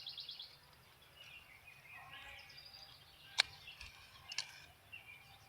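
Faint birdsong: a quick high trill at the start and scattered chirps. Two sharp clicks, about three and a half and four and a half seconds in.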